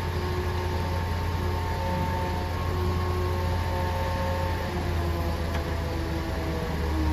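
Diesel engine of a grapple-crane garbage truck running steadily with a low hum, while thin whining tones from the crane's hydraulics come and go as the grapple arm moves.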